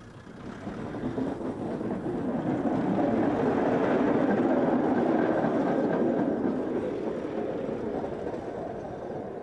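Hi-rail utility vehicle running along the railway track on its rail wheels and passing by. Its rumble builds, is loudest about halfway through, then fades away.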